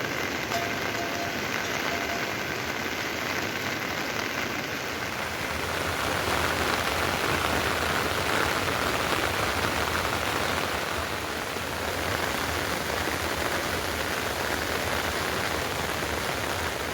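Heavy rain falling steadily, growing a little louder about five seconds in.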